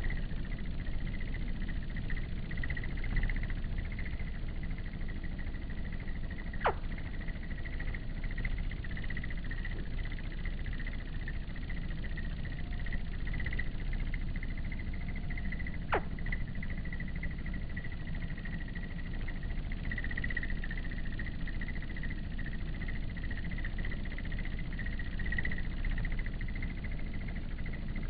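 Steady, high-pitched, slightly pulsing insect chirring over a low outdoor rumble. Two quick downward-sweeping chirps cut through, about seven seconds in and again about sixteen seconds in.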